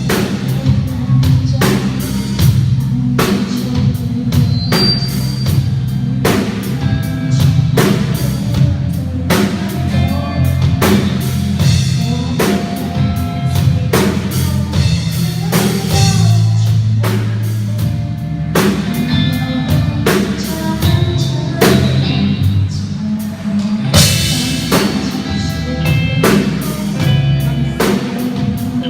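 A rock band playing live: a drum kit with bass drum and regular hits throughout, over bass and electric guitar.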